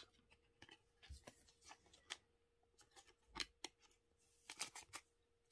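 Faint, scattered clicks and flicks of glossy Topps Match Attax trading cards being handled and slid against one another, with a faint steady hum underneath.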